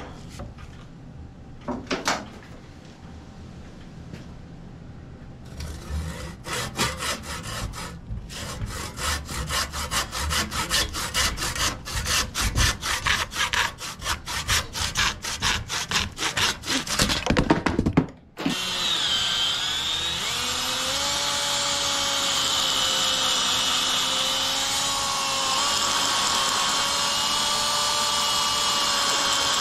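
A hand saw cuts through the old wooden sledgehammer handle where it meets the head, in rapid, even back-and-forth strokes, then stops. After a brief pause an electric drill starts and runs steadily, its bit boring into the wooden stub in the hammer head's eye. Its whine wavers a little under the load.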